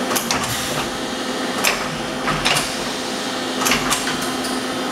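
Sharnoa HPM 30 vertical machining center's carousel tool changer swapping tools, with several sharp mechanical clunks over the machine's steady hum.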